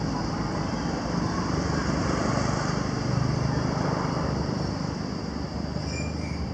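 A motor engine runs in the background, a steady low drone that swells toward the middle and eases off near the end, like a vehicle passing.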